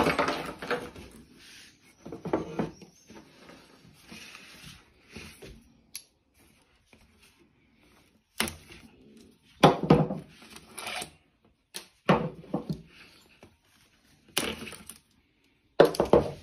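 Corrugated plastic tubing rattling as it is handled and cut with snips, in irregular bursts a second or two apart. The bursts are loudest at the start, around ten seconds in, and near the end.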